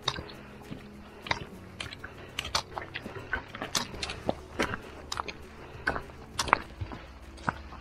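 Footsteps crunching on a loose gravel path, mixed with the sharp clicks of trekking-pole tips striking the stones, irregular and a few per second.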